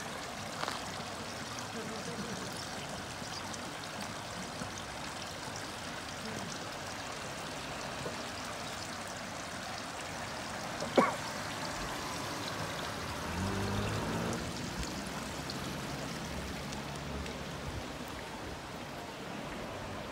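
Water running steadily in a shallow stream and a wooden flume channel: an even, rushing trickle. A single sharp click comes about halfway through, and a low hum rises for a couple of seconds soon after.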